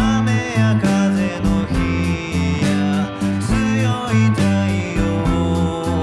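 Rock band track with drums and guitars, with an electric bass line played along over it and prominent in the mix, its notes changing about every half second.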